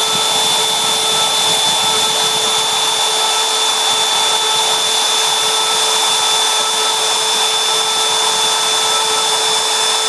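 Fireball V90 CNC router's spindle running at high speed with a steady, high whine over a hiss, its fine bit working a copper-clad circuit board.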